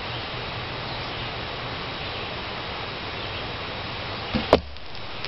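Steady outdoor hiss, then a bit over four seconds in the dull thrum of a Martin longbow being loosed, followed about a fifth of a second later by a sharp crack as the arrow strikes the match and target close by. This is the shot that lights the match.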